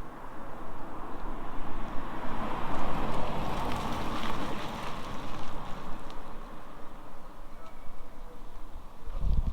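A car passing by: tyre and engine noise swells to a peak about three to four seconds in, then fades away.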